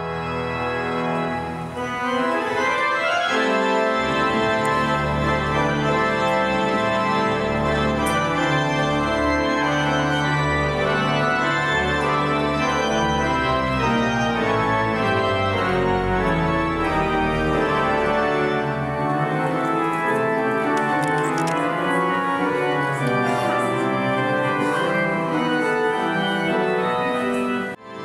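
Church organ playing sustained chords over a deep bass line, fading in at the start.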